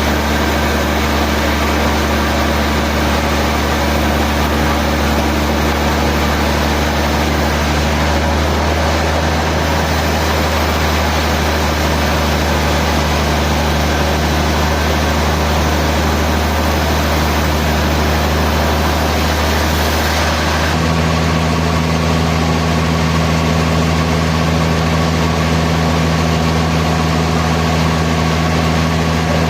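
Sawmill machinery running steadily, a heavy motor drone with a constant hum. About twenty seconds in, the tone changes abruptly, with a new hum and a duller top end.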